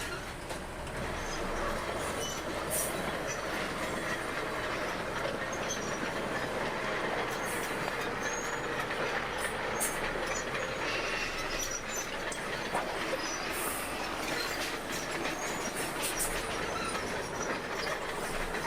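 Bulldozer working: a steady engine noise with the steel crawler tracks clanking and squealing, scattered sharp clanks and short high squeaks throughout.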